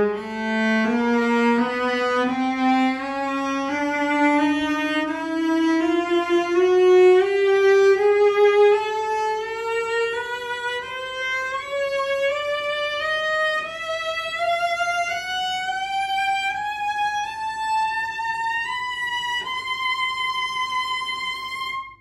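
A c. 1910 E. R. Schmidt workshop cello from Markneukirchen, bowed in a slow scale that climbs note by note from its middle register up into its high register. The last high note cuts off suddenly.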